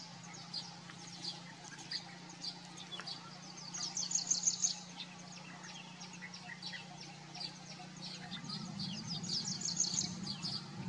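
Birds chirping: many short, high chirps and twitters, coming in quick runs about four seconds in and again near the end, over a steady low hum.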